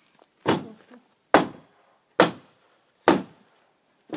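Steady chopping into wood: five sharp strikes in an even rhythm, a little under a second apart.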